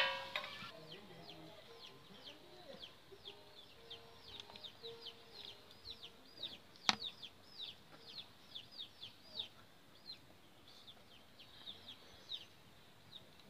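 Faint, repeated short high bird chirps, two or three a second, with a single sharp click about seven seconds in.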